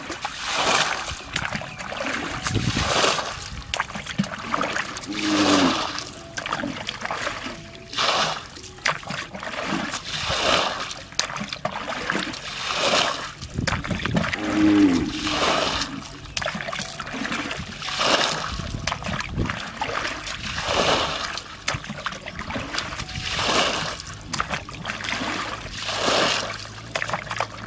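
Muddy shallow water splashing in repeated surges, about one every two to three seconds, as water is scooped and thrown out with a plastic basin.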